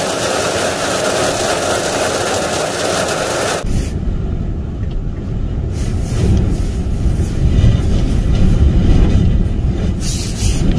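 A vehicle running, heard as steady engine and road noise. About four seconds in, the sound changes abruptly to a deep, low rumble.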